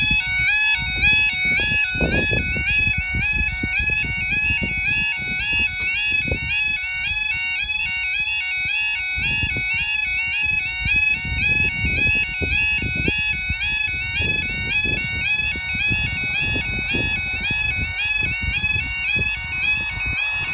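Level crossing's new electronic warning alarm sounding continuously: a rapid two-tone warble that repeats evenly several times a second, over an irregular low rumble.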